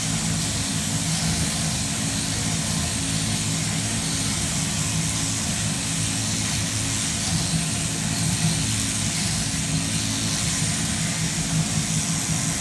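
Sheep-shearing machine running steadily: the electric overhead drive and the handpiece cutter working through the fleece, a constant mechanical drone with a hiss above it.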